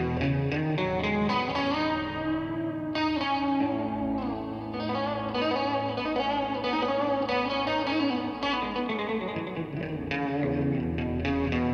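Electric guitar through a distorted amp playing a lead melody of sustained notes, several bent or slid up and down in pitch.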